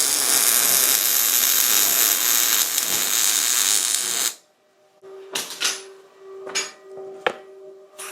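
MIG welder arc crackling and hissing steadily as a weld bead is laid, for about four seconds, then cutting off suddenly. After it come a few sharp clicks and a faint steady hum.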